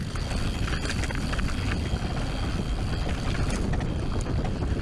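Mountain bike descending a dirt trail, heard on an action camera: steady wind rumble on the microphone and tyre noise, with a scatter of quick rattles and knocks from the bike over the bumps.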